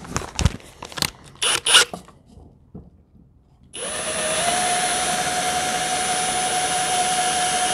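Clicks and clatter as a bit is fitted into a Ridgid cordless drill's chuck, then a short pause. About four seconds in, the drill starts and runs at a steady speed with a constant whine, its bit against a wooden block.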